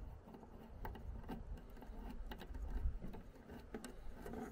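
Faint scattered clicks and rustles of fingers working a small plastic-and-metal wire connector loose from a tail-light wiring harness.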